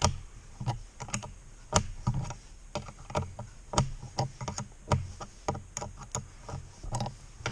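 Irregular clicks and light knocks of a metal mirror bracket and its bolt being handled and worked into place by hand on an ATV handlebar, about one or two a second.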